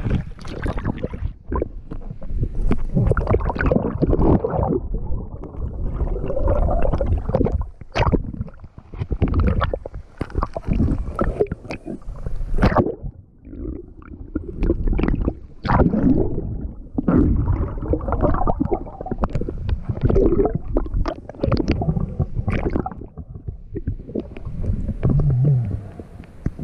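Muffled underwater noise from a camera held below a river's surface: low rumbling and gurgling of moving water and bubbles, in uneven surges, with scattered knocks as the diver moves. A short low hum comes near the end.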